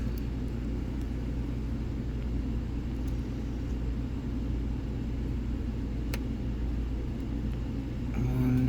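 Steady low background rumble, with one sharp click about six seconds in.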